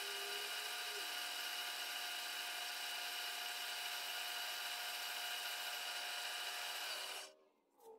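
Milling machine spindle turning a fly cutter with a high-speed steel bit, taking a light, dry finishing pass across a cast metal base: a steady hiss with several steady tones. It cuts off suddenly about seven seconds in.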